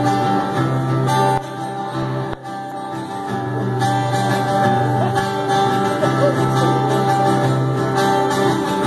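Live band playing a song's instrumental intro: sustained chords over a steady, held bass note.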